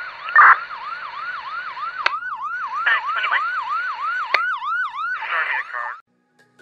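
Electronic emergency-vehicle siren in a fast yelp, each rising sweep about a quarter of a second long, layered with a second, higher siren, a few short noisy bursts and two sharp clicks. It cuts off suddenly about six seconds in.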